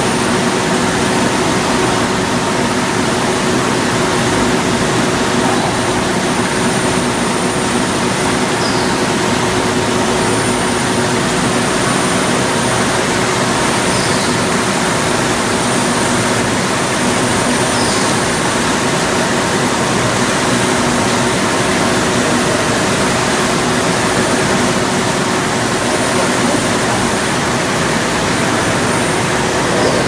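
Steady rushing noise with a constant hum underneath, unchanging throughout, and three faint short high chirps in the middle stretch.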